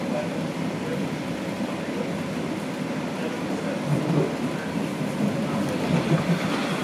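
Inside a Toronto Rocket subway car on TTC Line 1 running at speed: steady noise of the wheels on the rails and the running gear, even in level throughout.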